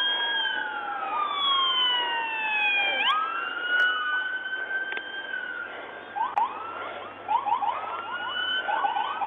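Police car sirens approaching, more than one at once: slow wails rising and falling over each other, then from about six seconds in a fast yelp of quick repeated sweeps.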